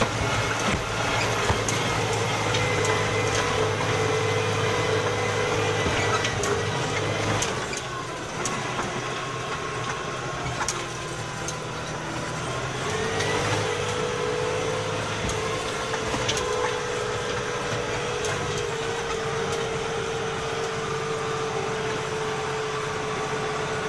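Fendt 312 tractor's diesel engine running steadily as the tractor drives. About a third of the way in the engine note drops for a few seconds, then rises again and holds. A few sharp knocks sound now and then.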